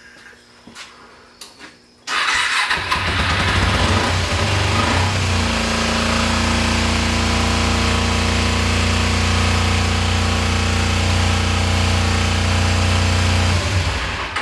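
Kawasaki Ninja 250 (EX250) liquid-cooled parallel-twin engine starting about two seconds in, running unevenly for a few seconds, then settling to a steady run before shutting off near the end. It runs but needs a carburetor rebuild.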